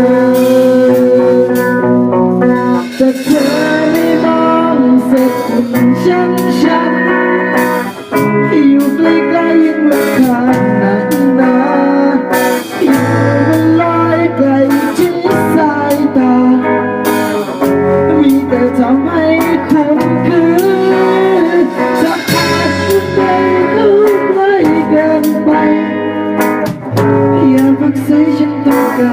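Music led by guitar, with a wavering melody line over it.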